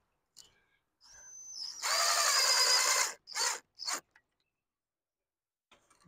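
Power drill driving a screw: the motor spins up and runs steadily for about a second, then gives two short bursts as the screw is snugged down.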